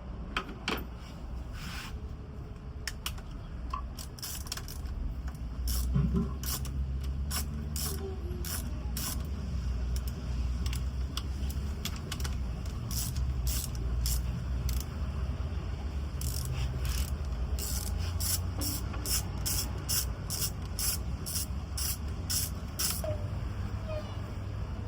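Repeated sharp mechanical clicks, one or two a second in irregular runs, over a steady low hum.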